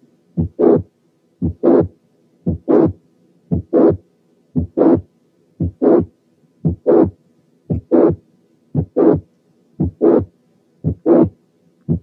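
Heart sounds heard on auscultation with a late systolic murmur, about one beat a second. Each beat has a short first heart sound, an empty first half of systole, then a murmur that starts mid-systole and runs into the second heart sound. It is the late systolic murmur of mitral regurgitation caused by mitral valve prolapse.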